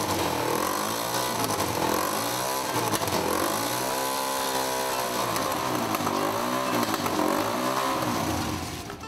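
A small motor running steadily with a loud rushing noise whose tone swells and sweeps up and down, fading out near the end.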